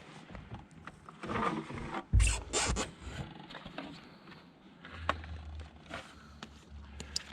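Rustling and scraping handling noises in a canoe, with a heavy thump about two seconds in and a few sharp clicks later on.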